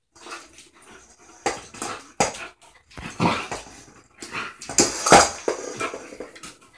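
A puppy playing, making short vocal sounds in irregular bursts, the loudest about five seconds in, with sharp clicks of claws and the toy on the tiled floor.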